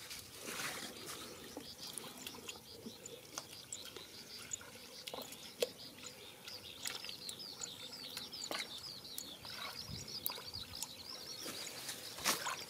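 Small songbird chirping in a fast run of repeated high notes through the second half, over scattered splashes and squelches of hands working in wet mud and shallow water.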